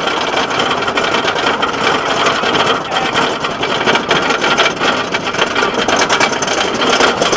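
Ghostrider wooden roller coaster train clattering and rattling over its track, heard from aboard, as a loud, dense, continuous rattle.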